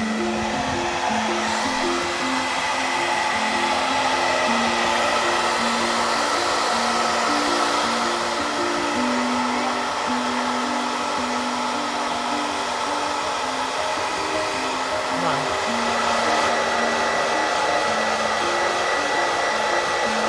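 Handheld hair dryer running steadily, blowing warm air, an even rushing noise with a faint high whine, under a soft background melody.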